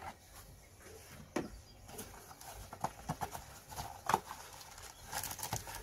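Scattered light knocks and clicks of the new oil filter being handled and unpacked from its cardboard box, with a quick run of sharp clicks a little after five seconds.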